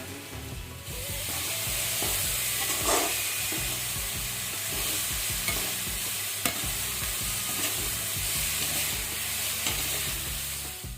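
Food sizzling in hot oil in a pan, growing louder about a second in and then holding steady, with a spatula stirring and now and then tapping against the pan.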